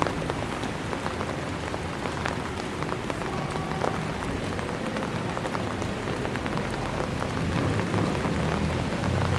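Steady rain falling on wet stone paving: an even hiss with many scattered sharp drop ticks.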